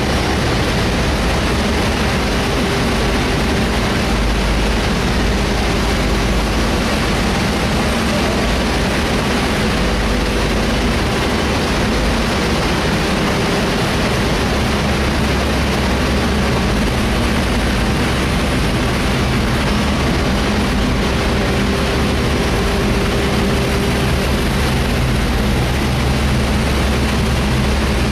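Large industrial fan for a cement plant running at steady speed: a constant rushing airflow noise with a low hum underneath.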